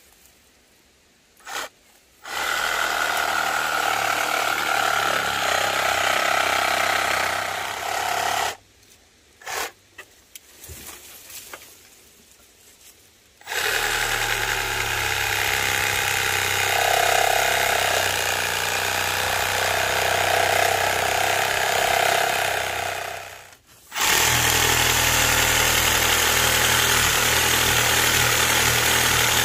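Cordless reciprocating saw cutting through a tree stump and roots, running in long steady bursts: for about six seconds from two seconds in, then a pause with a few short blips, then running again from about halfway with one brief stop near the end.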